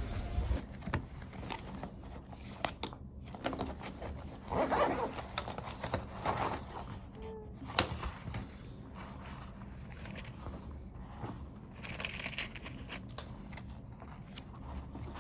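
Close handling noises: scattered rustling, scraping and small clicks at irregular intervals, over a low steady background hum.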